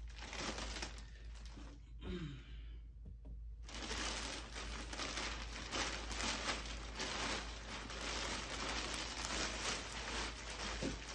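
Packaging wrap being pulled off the cart's main piece, crinkling and tearing, with a short lull about two seconds in.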